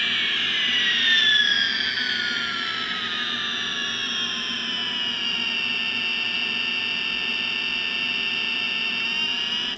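Electronic jet-plane sound from the removable airplane attachment of an Always Learning "Here Comes Dinner" weaning spoon: a whooshing engine noise with a whistle that falls steadily in pitch over about six seconds, then holds steady and cuts off suddenly at the end.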